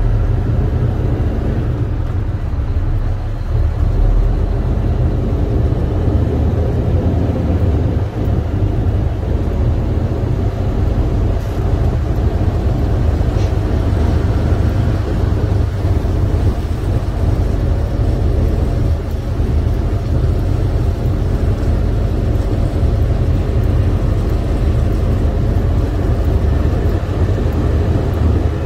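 International semi truck's MaxxForce 13 diesel engine running with a steady low drone, heard inside the cab as the truck turns around and rolls slowly across a lot.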